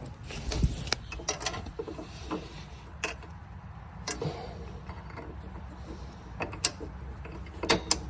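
Irregular sharp metallic clicks and knocks of hand tools and steel parts as a wheel and handle kit is bolted onto a portable generator's frame, with a cluster of the loudest knocks about half a second in and another near the end.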